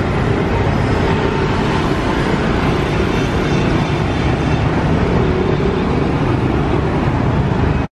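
Busy city street traffic of motorbikes and cars: a loud, steady mass of engine noise.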